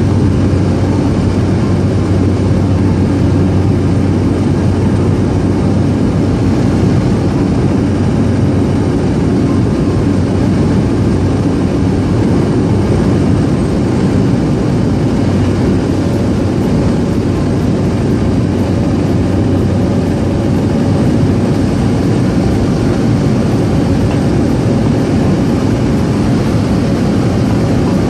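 Small propeller aircraft in flight, its engine and propeller giving a steady, loud drone with a constant low hum, heard from on board.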